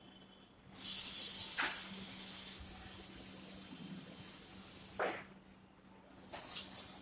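Chalk scratching on a blackboard as words are written. A loud, steady hiss starts suddenly about a second in and lasts about two seconds, and a shorter hiss comes near the end.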